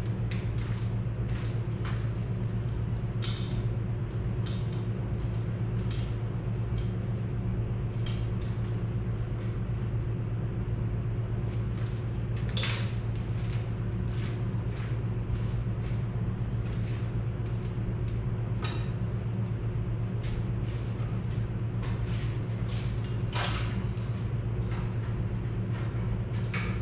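A steady low hum throughout, broken by a handful of sharp metallic clinks and knocks as the Super C's cylinder head is worked loose and lifted on a chain hoist; the loudest clinks come about halfway and near the end.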